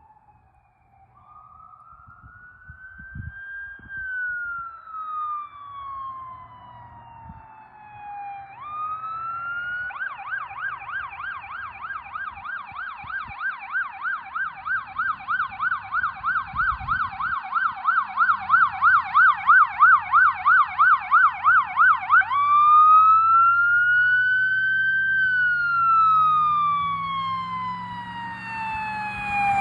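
Emergency vehicle's electronic siren on a run. It gives a slow rising-and-falling wail, then switches to a fast yelp of about three sweeps a second for some twelve seconds, then returns to the wail, growing steadily louder throughout. A low engine note rises in pitch near the end.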